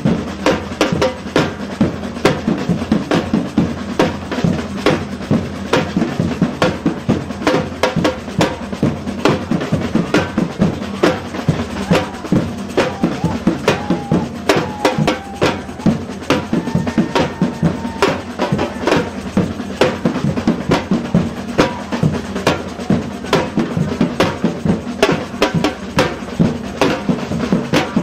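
Samba drum troupe playing a steady, driving batucada rhythm on large bass drums, with crowd voices mixed in.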